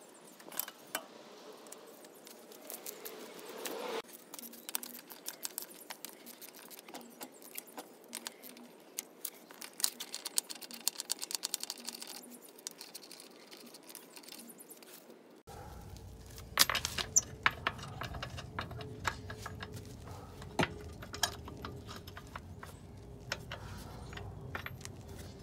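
Loosened lug nuts on the rear wheel of a 1999 Ford Mustang being spun off the studs by hand: repeated small metallic clicks and rattles as the nuts turn and knock together in the hand.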